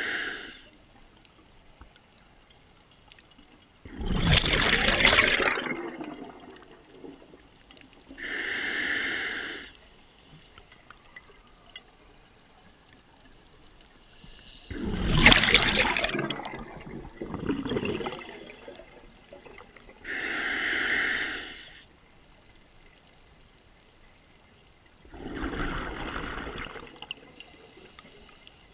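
Scuba diver breathing through a regulator underwater in a slow, even cycle. A short hiss of the regulator on each inhale is followed a few seconds later by a louder rush of exhaled bubbles, three times over.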